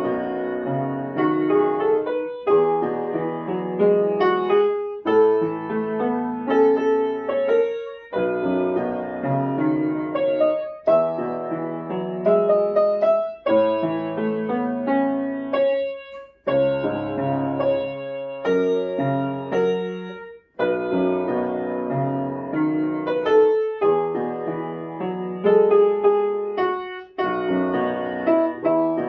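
Piano music: a gentle melody with chords, played in short phrases of a few seconds, each followed by a brief pause.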